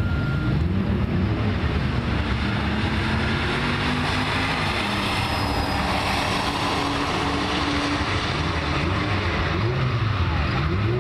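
A turbocharged Buick and a V8 Camaro SS running at full throttle down a drag strip. Their engine notes repeatedly climb in pitch and fall back as they shift up through the gears.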